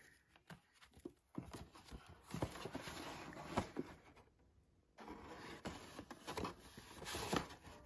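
Stiff postcards rustling and tapping as they are flipped through and pulled out of a cardboard accordion file, with several light knocks; the sound drops out completely for under a second a little past the middle.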